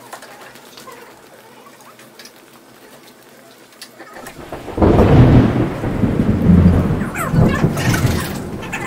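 Microphone handling noise: a loud rumbling rub and scuffle as a headset microphone is fitted on a person's head, starting about five seconds in after a few faint clicks.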